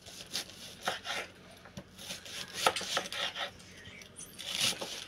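A sharp knife slicing through a red cabbage on a wooden cutting board: a series of irregular cuts, some louder than others.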